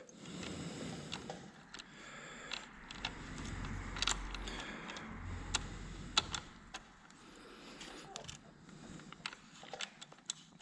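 Scattered light metallic clicks and rattles of hand tools and bolts being handled while a radiator brace is bolted onto a dirt bike.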